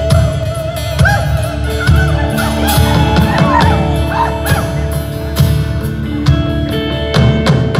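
Live rock band playing: drums, bass and electric guitars, with a lead melody over it that bends and wavers in pitch for a few seconds early in the passage.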